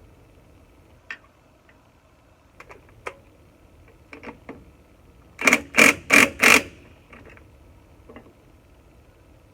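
Metal tools clicking and clanking as a hub puller is fitted onto a CJ5 Jeep's drum hub, with four loud, quick sharp knocks in a row about five and a half seconds in.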